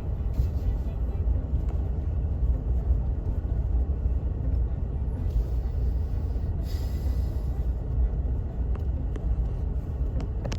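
Vehicle driving slowly, a steady low rumble of engine and road noise, with a brief hiss about two-thirds of the way through.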